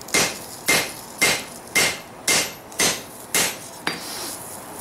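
Hand hammer striking a hot steel bar on an anvil, seven even blows about two a second, each with a short ring, then a brief pause near the end: forging a bevel along the bar's edge.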